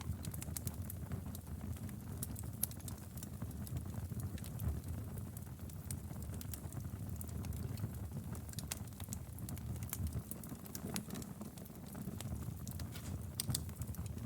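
Wood fire in a fireplace crackling: frequent sharp pops and snaps of burning firewood, irregular and scattered throughout, over a steady low rumble of the flames.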